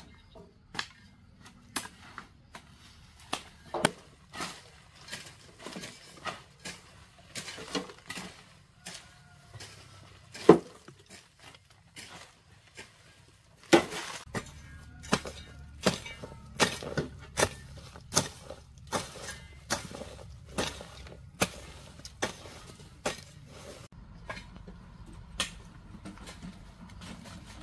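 Repeated sharp knocks and clinks of hard objects, irregular, about one or two a second, with two louder strikes about ten and fourteen seconds in. A low, steady background noise comes up under them about fourteen seconds in.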